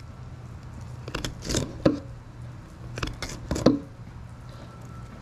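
Fillet knife working down the back of a sheepshead along its spines, giving sharp clicks and knocks in two bunches, about a second in and again about three seconds in.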